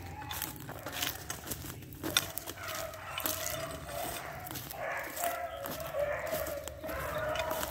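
Footsteps crunching over dry cut brush, with drawn-out animal calls in the distance from about two and a half seconds in, repeating and overlapping.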